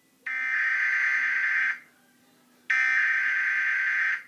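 Alarm buzzer sounding a warning in long, steady blasts: two buzzes of about a second and a half each, a second apart.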